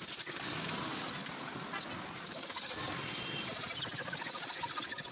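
Metal blade scraping the oxidized outer layer off a plastic headlight lens in repeated short strokes, shaving it away.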